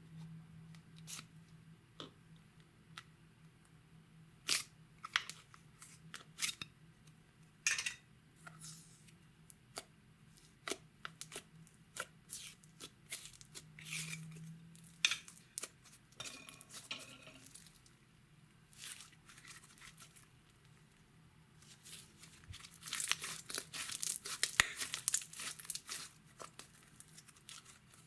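Slime being worked by hand, giving scattered sharp pops and crackles, with a dense run of crackling near the end.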